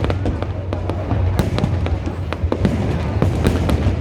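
Fireworks going off: a dense, irregular run of sharp bangs and crackles over a continuous low rumble.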